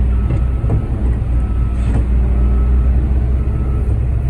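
Concrete mixer truck's diesel engine running steadily at high idle while the drum discharges concrete, with a few brief knocks, the clearest about two seconds in.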